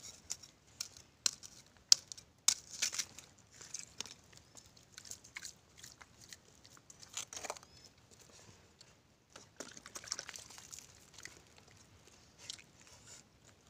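Knife cracking and prying open a sea urchin's shell: a run of sharp clicks and crunches, loudest about two seconds in.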